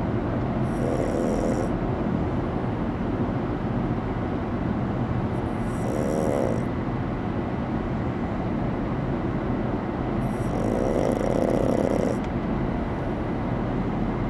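A sleeping pug snoring in slow, even breaths, three snores about five seconds apart, over the steady drone of car road noise inside the cabin.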